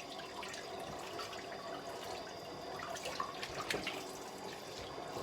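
Kitchen tap running into the sink, water splashing and trickling over a raw turkey being rinsed, with small splashes and drips.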